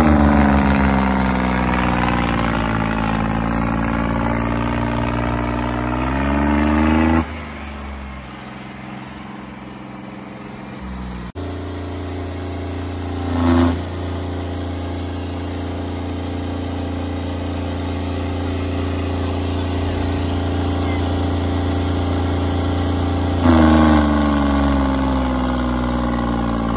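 Diesel tractor engines labouring under heavy load in a tractor tug-of-war, the engine note sagging and picking up again. The sound changes abruptly twice early on, and there is a brief louder blip near the middle.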